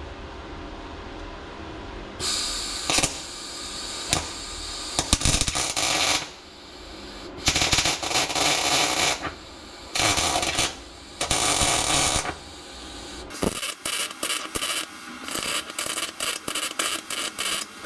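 MIG welder arc crackling in bursts as rust holes in a thin steel floor pan are filled. It runs in several welds of a second or two, then a quick run of short tacks, about two or three a second, near the end.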